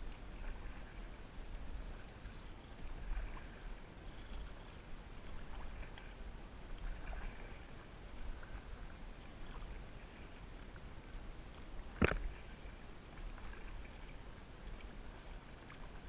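Faint water lapping and trickling against a kayak hull, with a low rumble underneath and a few small ticks. One sharp knock comes about three-quarters of the way through.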